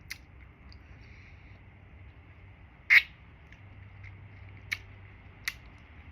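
Mouth sounds of someone eating a strawberry popsicle: a few short, sharp wet smacks or clicks, the loudest about three seconds in, with two smaller ones near the end.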